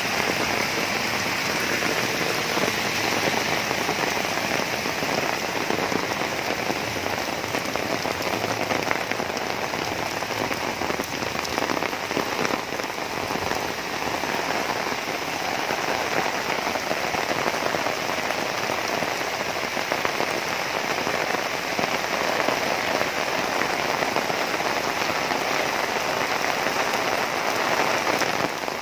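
Heavy rain falling steadily on pavement and foliage.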